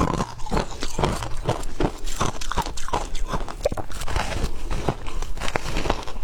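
Frozen ice being bitten and chewed close to the microphone: a steady run of sharp, crackly crunches, about two or three a second.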